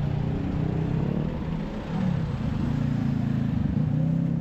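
Street traffic: a motor vehicle's engine running close by, its pitch rising and falling, over the steady noise of a busy city street.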